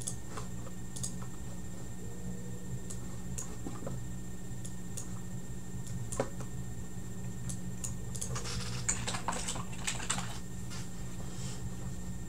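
Scattered small clicks, with a denser flurry of clicking and rustling about eight to ten seconds in, over a steady low electrical hum and a faint high whine.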